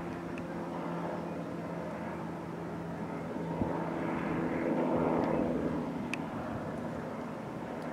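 Distant search-and-rescue helicopter in flight: a steady engine-and-rotor hum that swells a little about halfway through.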